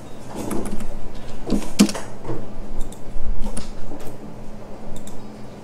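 Scattered clicks and taps from a computer mouse and keyboard, a few each second, over a steady low electrical hum.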